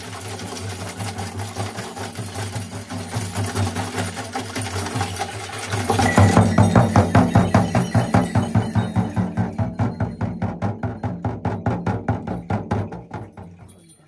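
Jhakri shaman's dhyangro frame drum beaten in a fast, even rhythm of about five strokes a second, as in a shaman's trance drumming. It grows louder about six seconds in, then fades and stops near the end.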